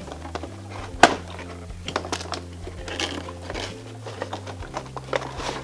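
Cardboard toy box and plastic packaging tray being handled and pulled out: scattered clicks and rustling, with one sharp click about a second in.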